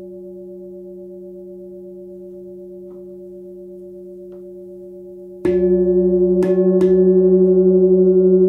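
Large 44 cm hand-forged Tibetan singing bowl ringing with a deep steady hum centred near 180 Hz. About five and a half seconds in it is struck and the ring swells much louder, with two more quick strikes about a second later, after which the tone rings on with a slow pulsing waver.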